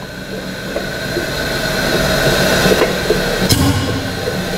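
Pneumatic power-clamp drum tipper running as it lowers its clamped drum: a steady mechanical running noise with a constant hum, building over the first couple of seconds, with a sharp click about three and a half seconds in.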